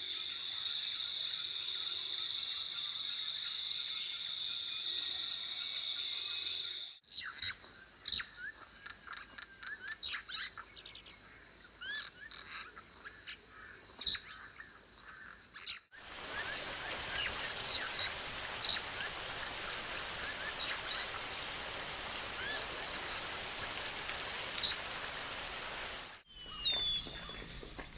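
Wild nature ambience in several spliced segments: a steady high-pitched insect drone for about the first seven seconds, then many birds chirping and calling, then a steady hiss with bird calls over it from about the middle, changing again near the end.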